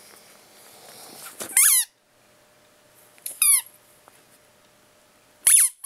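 Squeaky dog toy squeezed three times, about two seconds apart, each a short, loud squeak that falls in pitch.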